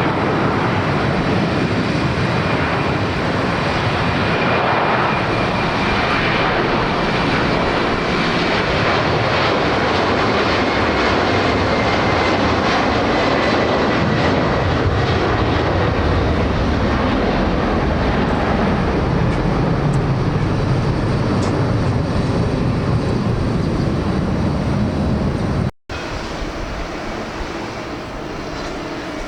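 Jet engines of a large airliner at takeoff thrust, a loud steady rush of noise with a faint whine slowly falling in pitch as the aircraft passes and climbs away. The sound cuts off abruptly about 26 seconds in and comes back as a quieter jet sound.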